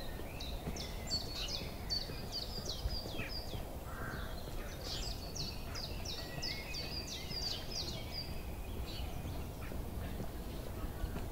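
A small songbird singing: two quick runs of short, high, downward-slurred notes, the first in the opening seconds and the second from about five seconds in, over a steady low rumble.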